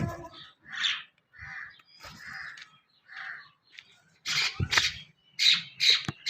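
A crow cawing: a series of short harsh calls, coming louder and closer together near the end.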